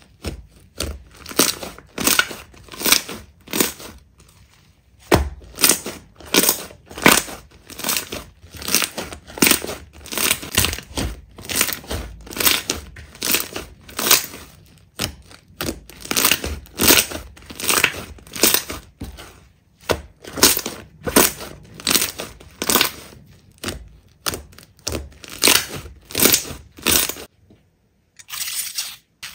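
Slime being pressed and squeezed by hand, with a crackling, popping squish on each press, about one to two a second. The pressing stops briefly near the end.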